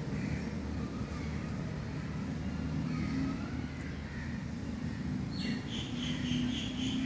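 Steady low background rumble with faint bird calls. Near the end a bird gives a quick falling note, then a rapid series of high chirps.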